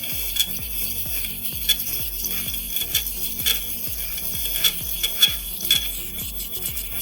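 Hand work on a diecast model car: sharp clicks and scraping over a steady hiss, with several louder clicks in the second half, over background music.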